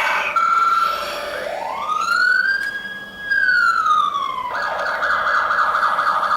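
Emergency vehicle siren: a fast yelp, then one slow wail that rises, holds and falls, then the fast yelp again.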